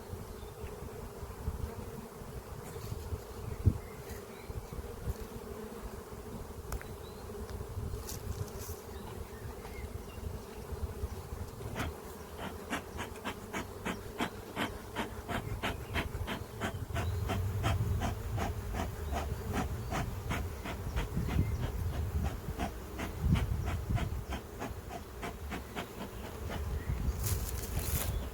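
Honeybees buzzing steadily around the hive, with low rumbles underneath. From about halfway, a regular ticking comes in, roughly three times a second.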